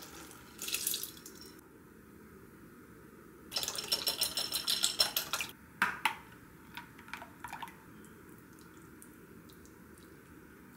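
Soy sauce poured into a glass bowl with a soft hiss, then a metal spoon stirring the marinade briskly against the glass with rapid clinks for about two seconds. A sharper knock and a few lighter taps follow.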